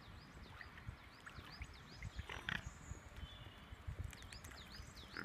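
A bird calls repeatedly in runs of quick, high notes that fall in pitch, over a low rumble of wind. About two and a half seconds in comes one brief noisy rasp.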